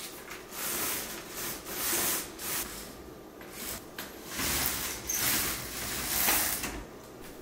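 Fabric roller blind being raised by hand: a series of swishing, rubbing pulls, about seven in all, each shorter than a second.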